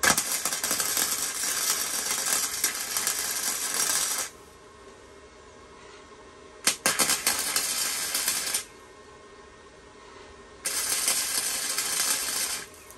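Electric arc welder laying tack welds: a steady crackling hiss of the arc for about four seconds, then two shorter bursts of about two seconds each, with pauses between.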